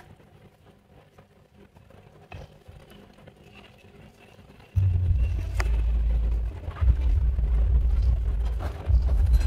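A few faint clicks of wire being handled, then about halfway through a loud, low rumble starts suddenly and runs on, dipping briefly once or twice.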